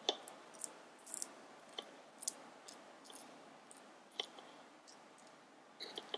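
Tiny wooden chopsticks stirring cooked rice in a miniature metal saucepan: faint, irregular clicks and light scrapes as the sticks knock the pan and move through the rice.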